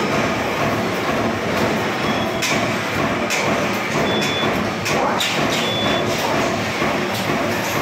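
Steady machine noise of a metal workshop, with the press brake running, and sharp metallic clanks and rattles of sheet metal being handled, clustered in the middle. A few short high beeps sound in between.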